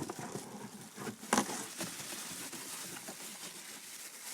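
Rustling and small knocks of lathe accessories and parts being handled with gloved hands, with one sharp knock about a second and a half in.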